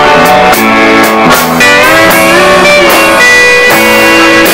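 Live country band playing an instrumental break led by a steel guitar, its sustained notes sliding between pitches over bass, rhythm guitar and a steady drum beat.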